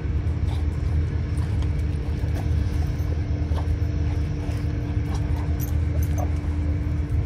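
A running machine's steady low rumble with a constant hum, with faint scattered clicks over it.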